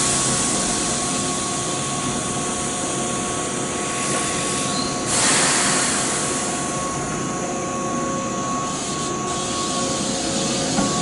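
Keihan 8000 series electric train standing at the platform, its onboard equipment giving a steady hum made of several tones. About five seconds in there is a loud hiss of air, which fades over a second or so.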